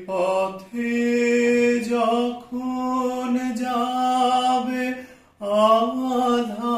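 A man singing a Bengali song unaccompanied, holding long drawn-out notes with a short break for breath about five seconds in.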